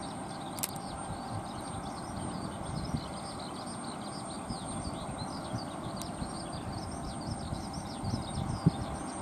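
Many birds chirping in quick, overlapping calls over a low, steady outdoor background rumble, with a couple of soft knocks near the end.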